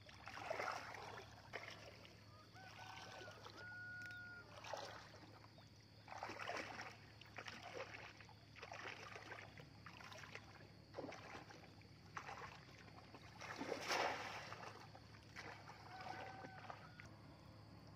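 Legs wading through shallow pond water: irregular swishes and splashes with each step, the loudest about fourteen seconds in. Short, steady whistled tones come twice, a few seconds in and again near the end.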